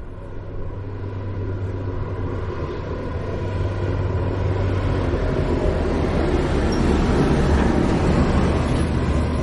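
Motor vehicle driving: a steady low engine rumble that grows gradually louder.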